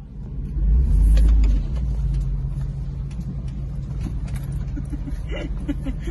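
Engine and tyre rumble of a 4x4 driving on a forest road, heard from inside the cab; steady, with a louder swell for about a second near the start.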